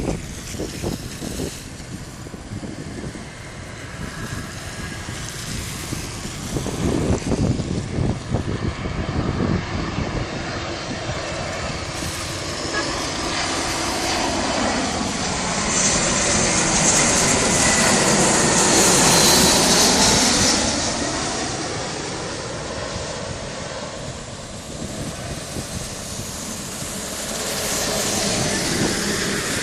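Jet airliner on landing approach passing low overhead: its engines build to a loud high whine about 16 to 21 seconds in, then fall in pitch and fade as it goes by. Gusts of wind buffet the microphone in the first several seconds.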